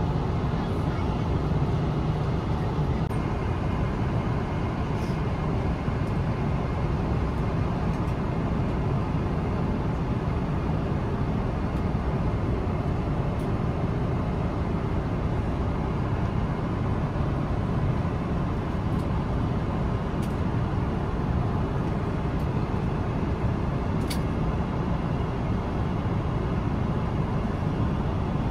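Steady cabin noise inside a Boeing 777-300ER airliner in flight: an even, low rumble of engines and airflow. A few faint light clicks come through now and then.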